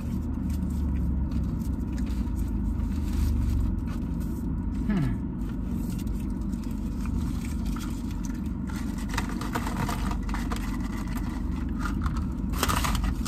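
Steady low hum inside a car's cabin, with small crackles and clicks of someone eating fries and handling a paper fry box; a louder rustle of packaging near the end.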